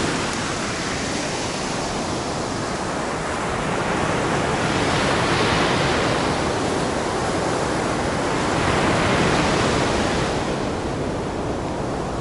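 Rough sea surf breaking and washing up a sand-and-pebble beach: a steady rushing noise that swells louder twice, about halfway through and again later as waves come in.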